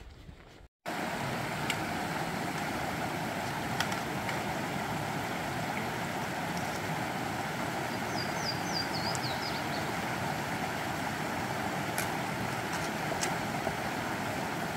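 Steady rush of a mountain creek's flowing water, cutting in suddenly about a second in. Around the middle, a bird gives a short run of high, falling chirps.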